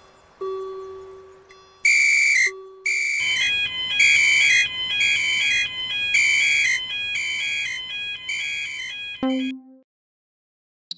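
Synthesized alarm-like electronic tone pulsing about once a second, laid over a beep that warbles between two pitches. Two decaying chime notes come before it, and near the end it ends in a short falling blip and then cuts off to silence.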